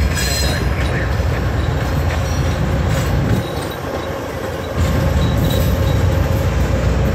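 Amtrak passenger train passing close by, led by GE P42DC Genesis diesel locomotives, with a loud continuous rumble of engines and wheels on the rails. Wind buffets the microphone, and the low rumble eases briefly about halfway through.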